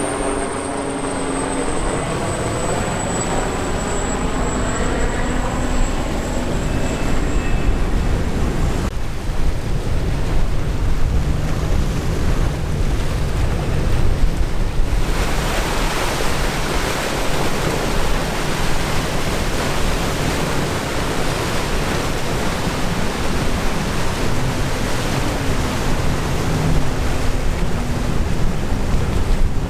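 Wind blowing across the microphone over the surf of rough inlet water, getting louder about halfway through. A boat engine runs faintly underneath.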